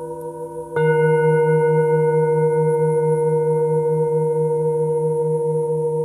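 Himalayan singing bowls ringing. A bowl is struck with a wooden mallet about a second in, adding a deep, sustained hum with several higher overtones. The lowest note wobbles several times a second as it rings on.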